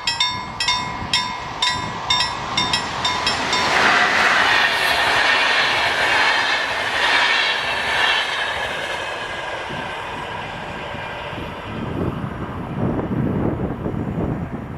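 A level crossing warning bell rings rapidly for the first few seconds, about three strikes a second. Then a VR InterCity passenger train passes over the crossing: a loud rushing of wheels and air that is loudest a few seconds in and slowly fades. Near the end the wheels clatter over the rail joints.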